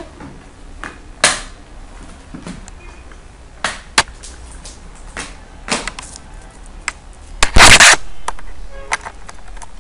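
Irregular sharp clicks and knocks, about ten of them, with one louder burst of noise lasting about half a second about three-quarters of the way through.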